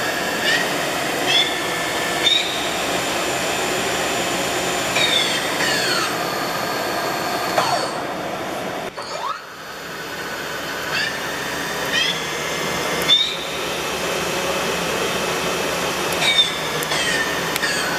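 Hartford HB 3150 CNC milling machine spindle speeding up and slowing down. Its motor whine climbs in steps over the first couple of seconds, then falls away. About nine seconds in the spindle nearly stops, then it climbs in steps again and starts falling near the end.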